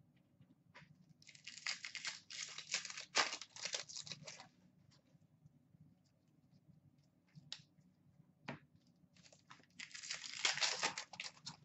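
A foil hockey card pack wrapper crinkling and tearing as it is ripped open, in two spells: one starting about a second in and one near the end. A few light clicks of cards being handled fall between them.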